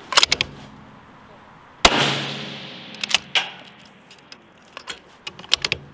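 A scoped precision rifle fires once about two seconds in, its report fading away over a couple of seconds. A smaller sharp crack with a short tail follows about a second and a half later, and quick runs of short clicks and knocks come near the start and again near the end.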